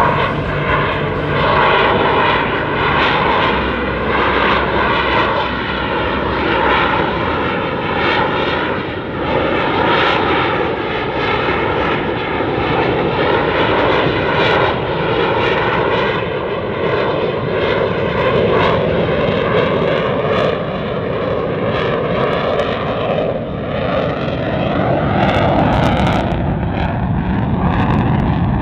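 CF-18 Hornet's twin General Electric F404 turbofan engines running at high power through a slow, nose-high high-alpha pass. The jet noise is loud and continuous, its tone slowly wavering and shifting as the aircraft moves across the sky.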